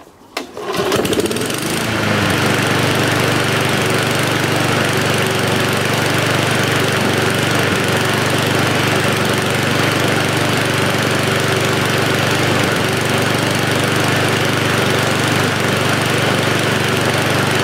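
Mountfield SV150 single-cylinder petrol lawnmower engine starting up about a second in, then running steadily at speed without hunting, on a freshly serviced carburettor and a new spark plug.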